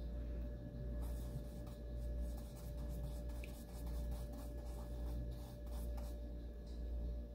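Paintbrush spreading and mixing thick black paint on a wooden board: a run of soft, scratchy brush strokes that begins about a second in, over a steady low hum.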